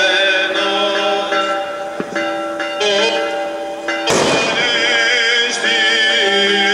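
Church bells ringing out for the Easter Resurrection, with voices singing over them and a loud firework bang about four seconds in.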